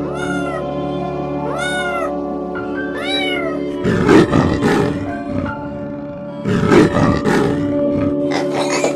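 A cat meowing three times, each call rising then falling in pitch, followed by two long, rough growling calls, all over background music with a steady held chord.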